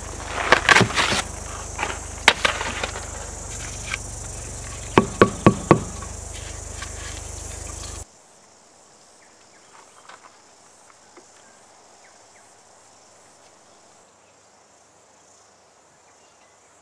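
Steady insect chorus with a series of sharp knocks and handling noise from work on the tractor's air filter and its end cap, including four quick knocks about five seconds in. About eight seconds in the sound cuts to a much quieter stretch with only faint clicks.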